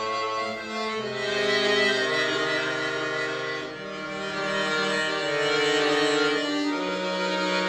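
Accordion (bayan) playing slow held chords, with a bass line that moves to a new note every second or two.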